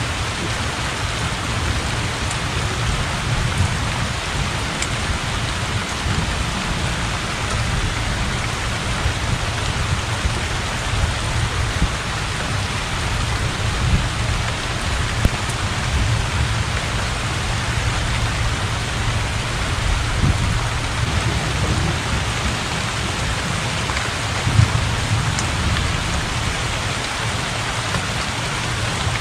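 Heavy rain falling steadily onto open floodwater, an even hiss with a constant low rumble underneath and a few sharper drip hits.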